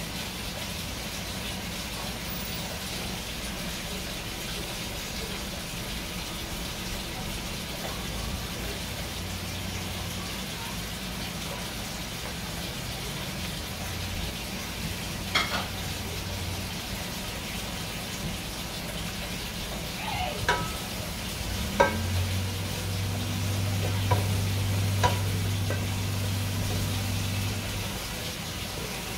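Shrimp curry masala frying in a stainless steel pot with a steady sizzle while it is stirred with a wooden spoon. The spoon knocks sharply against the pot a few times in the second half.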